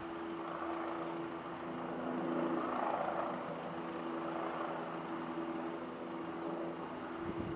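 Helicopter flying overhead, its rotor and engine running steadily, growing louder a few seconds in and then easing off.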